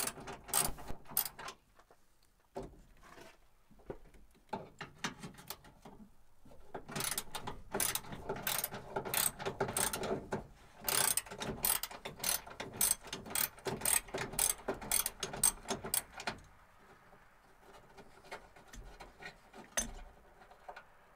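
Socket ratchet wrench clicking in quick runs of strokes as a bolt is worked, with short pauses between runs; about three-quarters of the way in it thins to a few scattered clicks.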